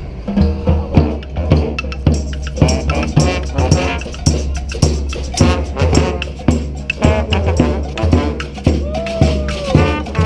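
Street brass band playing a tune: horn lines over a steady beat of drums and hand percussion.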